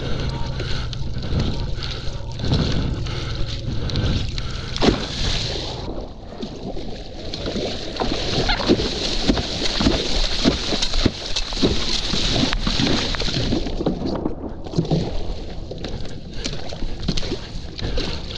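Water splashing and sloshing around a stand-up paddle foil board and its paddle as it is paddled, heaviest through the middle as spray comes off the board's nose. A low wind rumble on the microphone runs through the first few seconds.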